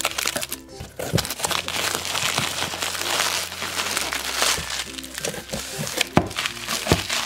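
Packaging crinkling and rustling in short bursts as items are handled, over background music.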